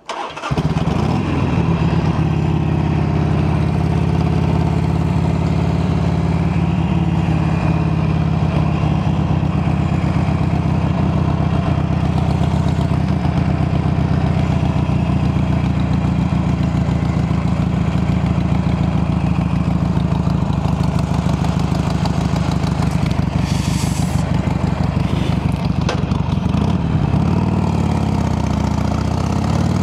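Harley-Davidson Sportster 883's air-cooled V-twin starts up and then idles steadily, its engine speed wavering a little near the end.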